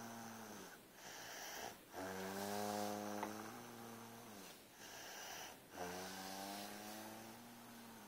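Heavy snoring in a slow, regular rhythm: long, pitched snoring breaths of about two and a half seconds, each separated by a shorter breathy hiss.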